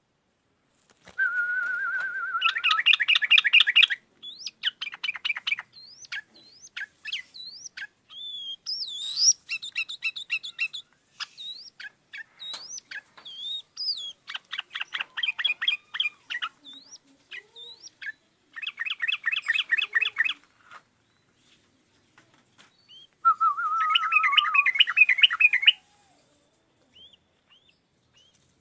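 Yellow-vented bulbul (trucukan) song on a masteran recording: bursts of fast rattling trills a few seconds long, two of them opening on a held whistle, alternating with quick gliding whistled notes.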